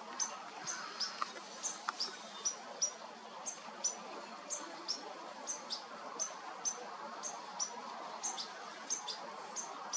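Juvenile European goldfinch calling to its parents: short, high chirps repeated about twice a second.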